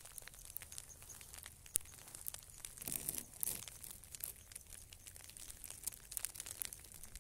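Freezing rain ticking on ice-glazed surfaces: many small, irregular crackling clicks, with a brief low voice-like hum about three seconds in.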